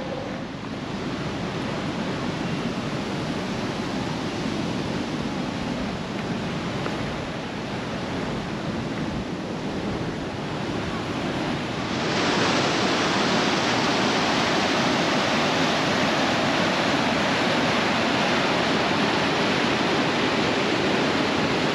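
River rapids: a steady rush of water, which turns louder and fuller about twelve seconds in.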